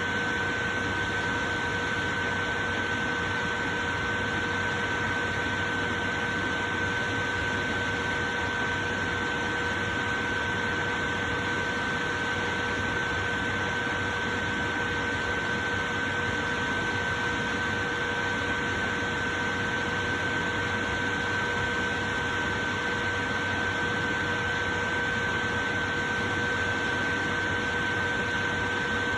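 Portable electric fan running steadily: an even rush of air with a constant whine.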